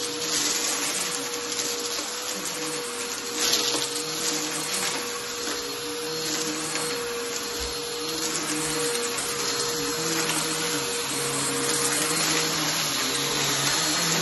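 Bissell PowerForce Helix upright vacuum cleaner running steadily on shag rugs. Its motor gives a constant whine over a lower hum that wavers up and down in pitch.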